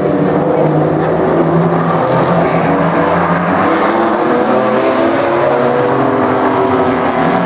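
Several V6 modified oval race cars lapping together under power. Their engine notes overlap and rise and fall slightly as they accelerate through the bends and pass.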